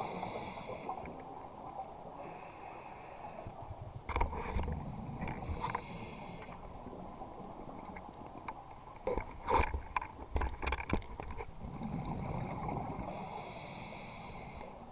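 Scuba diver breathing underwater through a regulator: short hissing inhalations every few seconds alternate with rough bubbling exhalations, with a cluster of sharp bubble clicks about two-thirds of the way through.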